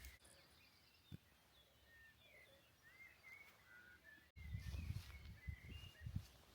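Faint birdsong: short chirps and whistled notes from several small birds. A low rumbling noise joins in the second half.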